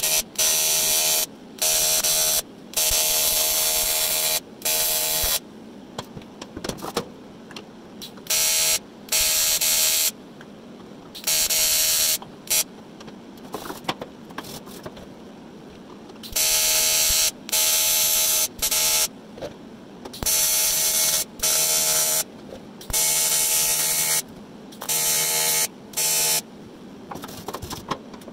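TIG welding arc on aluminium tube, lit and cut off again and again in bursts of about half a second to two seconds, each burst a steady buzzing tone.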